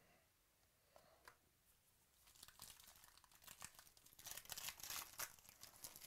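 Faint tearing and crinkling of a 2018 Illusions football card pack's wrapper being ripped open by hand, starting about two seconds in, strongest near the end and stopping just before it.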